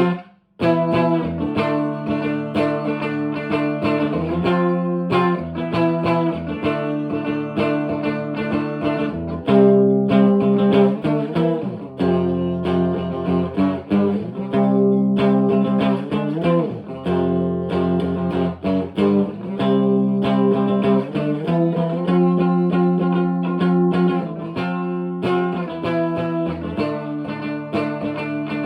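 1983 Fender Squier JV Telecaster played through channel 2 of a 1963 Selmer Thunderbird Fifty amplifier with 1970s Celestion Greenback speakers: sustained notes and chords with a few string bends, broken by a short gap about half a second in.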